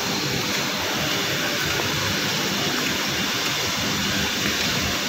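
Steady rushing noise from the machinery and process equipment of a chemical plant, even and unbroken throughout.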